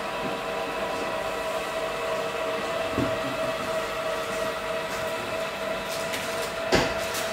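Electric motor of a vehicle person-hoist seat running steadily with a whine as it lifts the seated person, with a knock about three seconds in and a sharp click near the end.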